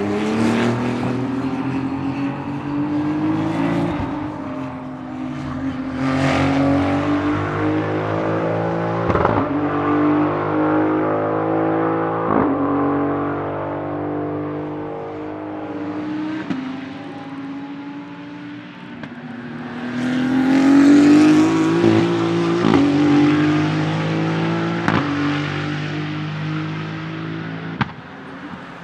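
Maserati MCXtrema's 3.0-litre twin-turbo V6 racing engine accelerating hard, rising in pitch through each gear with a sharp crack and a drop in pitch at every upshift. It grows louder again about twenty seconds in as the car pulls through another run of gears.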